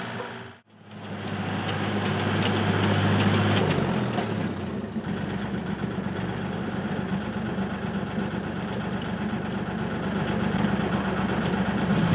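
Small tractor engine running steadily at idle, after a brief dropout near the start. Its low tone drops in pitch about four to five seconds in.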